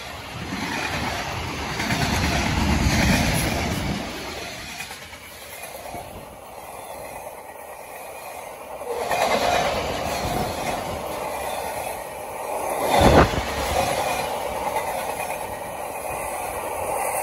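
Freight train cars rolling past at close range, their steel wheels rumbling and clattering on the rails, the loudness swelling and fading. About three-quarters of the way through there is one short, loud bang.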